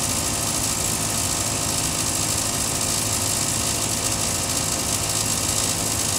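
Gas furnace fan running steadily with a low hum and an airflow hiss, the main burners already out after a short-lived heat cycle.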